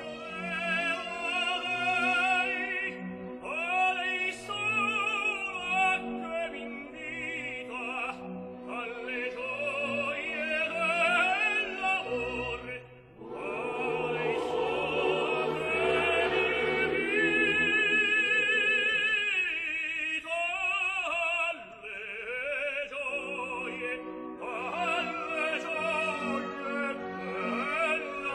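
A tenor sings an operatic aria with wide vibrato over orchestral accompaniment, in a live recording. Just before the middle there is a brief lull, then the voice and orchestra swell into a louder, fuller passage.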